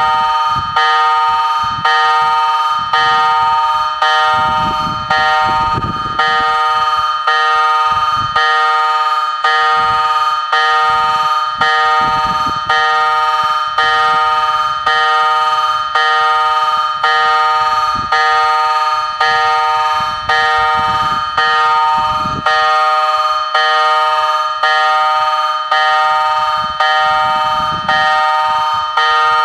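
Level crossing warning bells ringing steadily while the crossing is active, struck in an even, unbroken rhythm, each stroke ringing out before the next.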